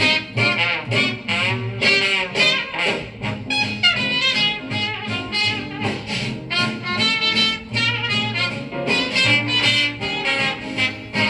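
Music with horns playing a melody over a bass line, in a jazz style.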